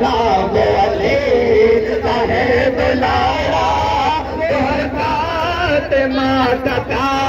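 Male voices chanting a nauha, a Shia Muharram lament, in a wavering melodic line that carries on without a break.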